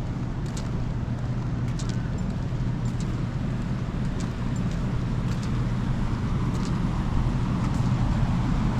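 A steady low motor drone, growing slightly louder toward the end, with a few faint ticks.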